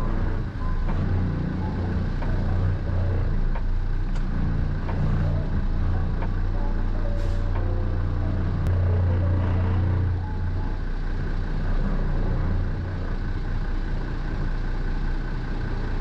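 Semi-truck's diesel engine running at low speed, a steady low drone, while the tractor-trailer is backed slowly.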